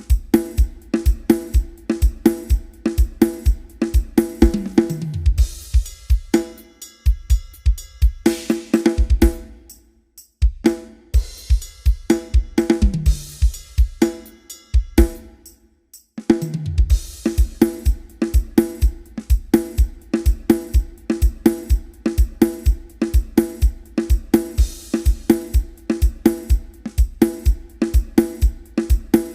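A drum kit playing a steady groove of kick drum, snare, hi-hat and cymbals, played as a sound-system test. Three times a low drum hit drops sharply in pitch, and the beat stops briefly twice.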